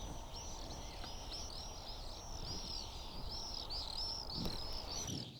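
A small songbird singing a rapid run of short high chirps, about four a second, over a steady low background rumble.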